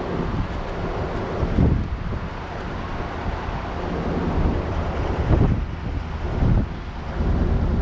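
Wind buffeting the microphone of a camera on a moving vehicle, a loud rumbling hiss that swells in gusts a few times, over a faint steady hum of engine and road noise.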